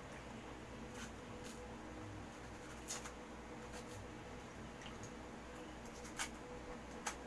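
Small knife cutting and scraping the peel off green bananas, giving soft wet squishes and a few sharp clicks, over a faint steady hum.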